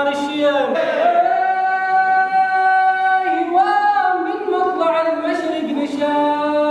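A group of men chanting a traditional Omani folk song in unison with no instruments, holding long notes that step to a new pitch every second or two.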